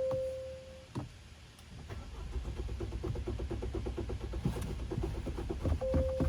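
A car's dashboard chime, a click, then the starter motor cranking the engine of a 2023 Acura Integra in even repeating strokes for about three and a half seconds, with a second chime near the end.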